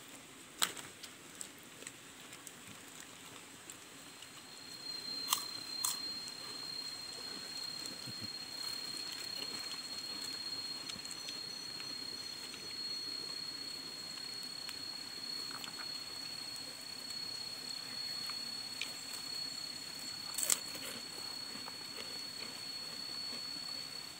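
An insect's steady high-pitched call starting about five seconds in and holding on, with a few sharp crinkles and clicks of plastic food bags and paper wrappers being handled during a meal.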